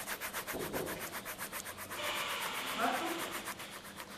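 Paintbrush rubbing on canvas in quick, even strokes, about ten a second, turning into a denser scratchy rustle about halfway through.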